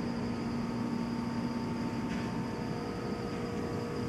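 Steady hum of running electric machinery, carrying several steady tones; the lowest tone fades out about two seconds in.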